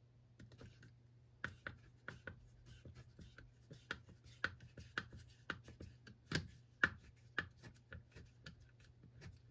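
Faint, regular clicking, about two clicks a second, as a screwdriver turns out the reverse-thread T25 center screw of a Honda GCV160 recoil starter.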